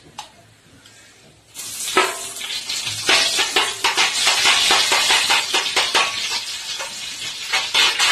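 Lumps of ghee sizzling and crackling as they hit hot coconut oil in a wide aluminium pan. The sizzle starts suddenly about a second and a half in, and a spoon stirs through it.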